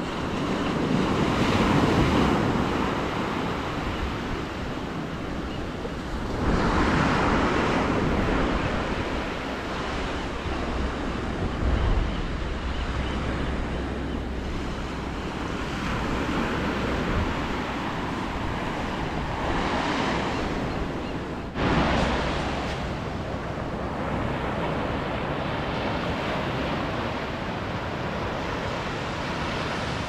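Small ocean waves washing onto a beach: a steady hiss of surf that swells and fades every several seconds. One wash sets in suddenly about two-thirds of the way through.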